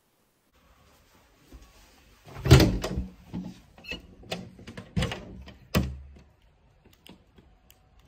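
A door being opened by its lever handle: a loud clunk from the latch about two and a half seconds in, then several more knocks and clicks about a second apart.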